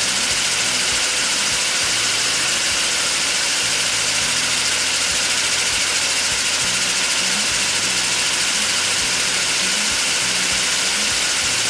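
LEGO pneumatic compressor, a bank of LEGO pneumatic pumps driven by small electric motors, running steadily as it builds air pressure, at its slower reduced-voltage speed above 35 psi. At the end it cuts off suddenly as the pressure reaches its set point of 42 psi.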